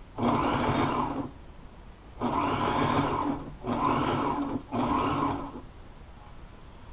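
Sewing machine running in four short bursts with brief pauses between, stitching a seam through layers of marine upholstery fabric and piping. Each run is a steady motor whine at constant speed.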